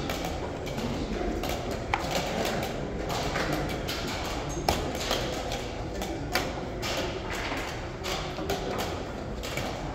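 Wooden chess pieces knocked down on the board and chess-clock buttons tapped during a fast blitz game: a string of short, sharp knocks over the steady background noise of a large, busy hall.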